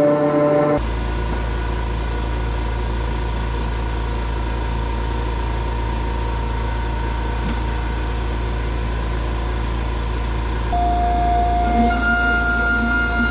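Pocket NC v2-50 desktop CNC mill running, a steady whine from its high-speed spindle over a hiss and low hum. About eleven seconds in, a new, lower steady spindle tone starts as the mill begins roughing the face of the metal stock, with rough cutting noise on top.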